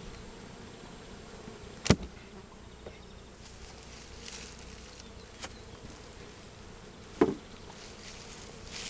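Steady buzzing of a honeybee colony around an open hive, with two sharp knocks, one about two seconds in and one near seven seconds.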